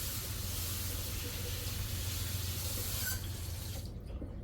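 Kitchen tap running into a sink, a steady rushing hiss that is turned off about three seconds in.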